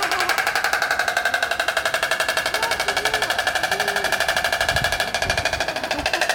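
Oriental stork bill-clattering: the mandibles snapping together in a rapid, even rattle of about a dozen strokes a second.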